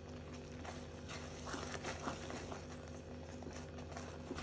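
A spatula stirring thick, cooked chana dal in a wok-style pan: soft wet squelches and light scrapes, irregular, over a steady low hum.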